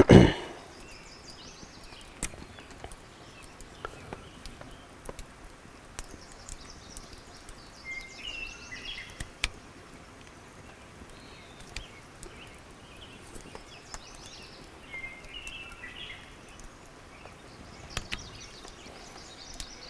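Knife working the nock end of a wooden arrow shaft, with faint scattered scrapes and clicks, and a thump at the very start. A bird chirps two short phrases, about eight and fifteen seconds in, over quiet outdoor background.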